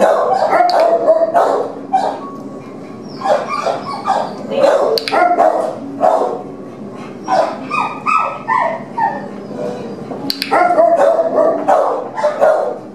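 Shelter dogs barking repeatedly in kennels, short sharp barks in several bouts.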